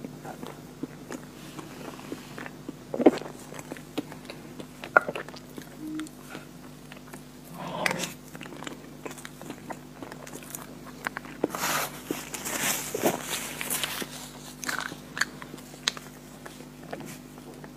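Close-up mouth sounds of eating soft chocolate ice cream cake: chewing, lip smacks and wet clicks, with two sharp smacks in the first five seconds and a longer hissy stretch about twelve seconds in.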